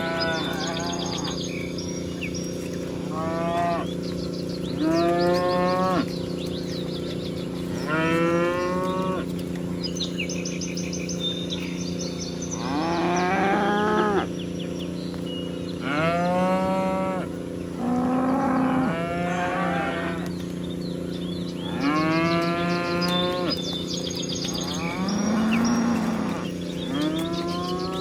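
Several cattle mooing one after another, about ten long calls over a steady hum.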